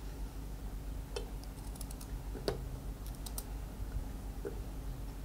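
A knife cutting through a raw green mango held in the hand, with chunks dropping into a stainless steel pot: a few scattered light clicks and taps, the loudest about halfway through.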